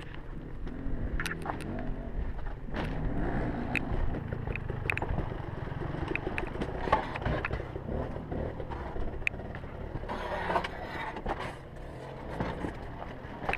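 Dirt bike engine running at low revs, its pitch rising and falling, with sharp knocks and scrapes of the bike against rock scattered throughout.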